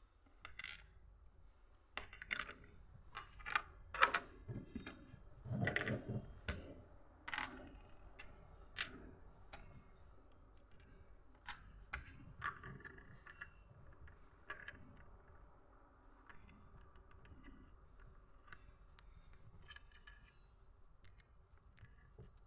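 Irregular small clicks and rattles of plastic Lego bricks being handled, busiest in the first third and thinning out to scattered clicks.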